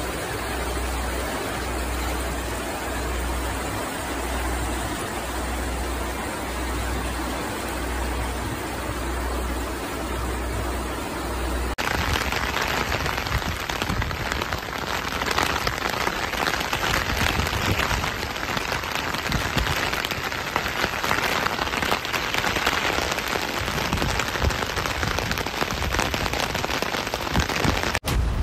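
Muddy floodwater rushing in a torrent: a steady rush of noise with a low throb about once a second. About twelve seconds in it cuts suddenly to heavy rain falling on a flooded street, a dense crackle of drops.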